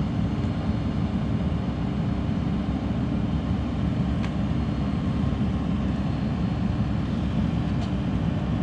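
Excavator's diesel engine running steadily, a low even rumble, with a couple of faint clicks.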